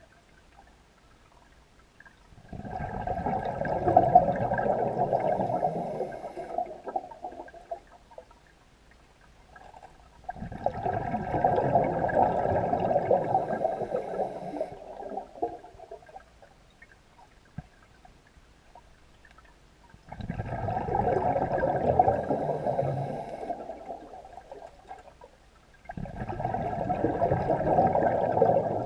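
A scuba diver's exhaled air bubbling out of the regulator, heard underwater: four long exhalations of several seconds each, with quiet pauses for the in-breaths between them.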